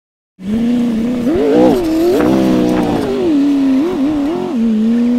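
Off-road buggy's engine at high revs, cutting in about half a second in. It blips the throttle repeatedly under load on a steep climb, its pitch swooping up and back down again and again.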